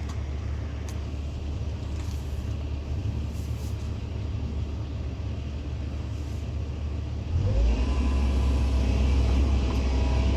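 Hydraulic excavator's diesel engine running with a steady low rumble. About seven seconds in it gets louder as the engine works harder, with rising whining tones over it.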